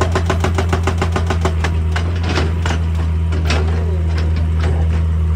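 Excavator diesel engine running steadily under a hydraulic rock breaker hammering at about ten blows a second; after about two seconds the blows give way to slower, irregular knocks.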